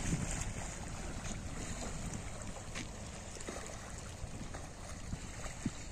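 Wind noise on the microphone, heavier at the start, over the steady wash of small waves against the shore rocks.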